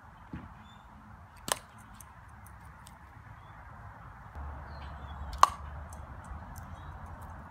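Sharp plastic clacks of a child's toy golf club hitting a plastic golf ball: a faint one near the start, a louder one about a second and a half in, and the loudest about five and a half seconds in.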